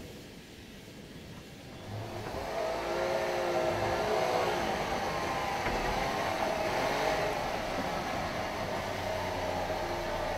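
Wartburg's two-stroke engine running, the exhaust smoking heavily; quieter at first, louder from about two seconds in, with the revs wavering up and down.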